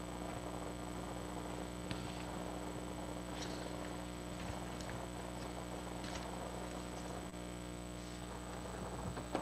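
Steady electrical mains hum from the sound system, with a few faint clicks and rustles scattered through it.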